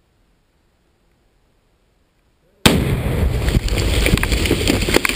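Quiet, then about two and a half seconds in a Tannerite charge packed against a tree detonates right beside the microphone with a sudden, very loud blast, followed by a dense crackling din with many sharp clicks as debris rains down.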